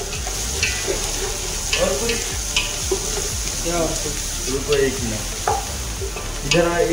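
Food frying in hot oil in a cooking pot, sizzling steadily while being stirred, the spoon scraping and clicking against the pot a few times.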